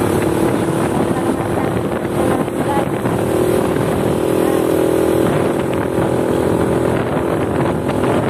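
Motorcycle engine running at a steady pitch while riding, heard from the pillion seat over a constant rush of wind and road noise.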